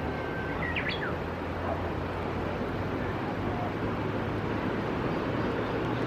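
Steady outdoor background noise with a low hum underneath, and a bird chirping briefly about a second in.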